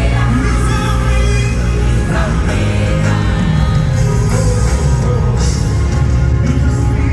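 Loud live worship music: a band with a heavy, steady bass and singing over it.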